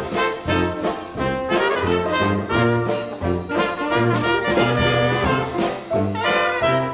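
Background music led by brass instruments, with a rhythmic bass line.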